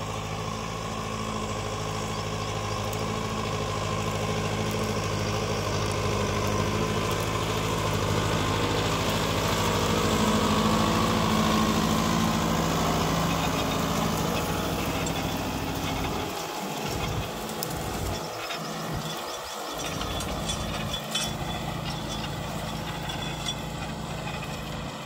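Kubota MU5502 tractor's four-cylinder diesel engine running under load as it pulls a plough through dry soil. It gets louder as the tractor passes close, about ten to twelve seconds in, then fades as the tractor moves away.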